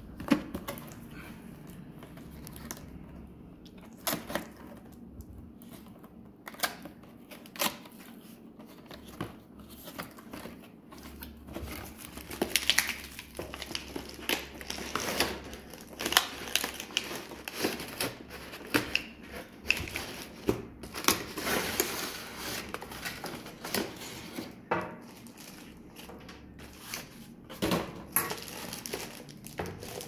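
Unpacking a cardboard box: scattered knocks and scrapes of cardboard flaps and rustling, crinkling plastic wrap and paper packing, busiest through the middle.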